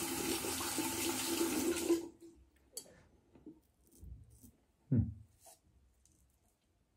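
Tap water running into a sink, shut off about two seconds in, followed by a few faint knocks and one short thump.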